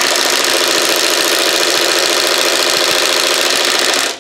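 Impact wrench hammering steadily on a rusted, seized nut, cutting off shortly before the end. The nut does not break loose.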